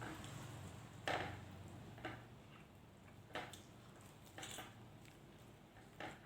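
Close-up eating sounds: five short clicks and smacks, spaced about a second apart, over a faint low hum.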